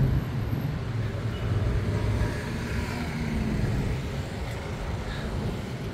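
A motor vehicle passing on the road, its engine rumble strongest for the first few seconds and easing after about four seconds.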